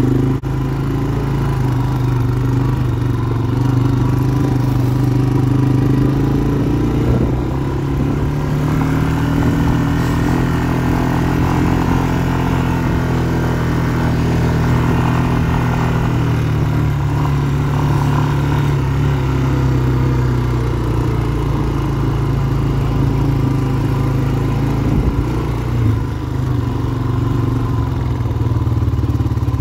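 ATV engine running while the quad is driven, its pitch rising and falling gently with the throttle.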